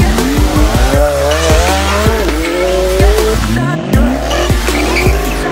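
Sports-car engines revving and tyres squealing as cars pull away hard, mixed over bass-heavy music with a steady kick drum.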